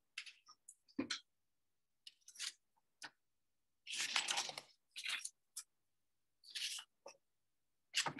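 About a dozen short, scratchy handling noises, scuffs and rustles picked up by a video-call microphone, with dead silence between them. The longest and loudest comes about four seconds in.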